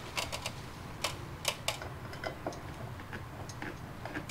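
Light, irregular clicks and taps of metal parts being handled as a ceiling fan is fitted up at its ceiling mount.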